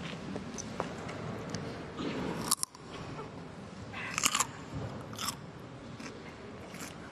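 Raw cucumber bitten and chewed close to a binaural dummy-head microphone: crisp crunches over soft chewing, with a sharp bite about two and a half seconds in and the loudest cluster of crunches just past four seconds.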